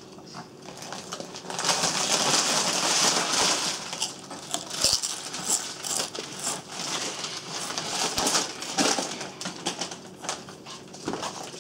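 Foil potato chip bag crinkling and chips crunching, in uneven crackly bursts that start about a second and a half in.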